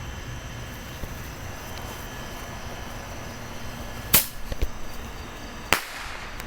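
Two sharp bangs of bottle rockets bursting, about a second and a half apart, the first about four seconds in and followed by a short crackle, over a steady low rumble.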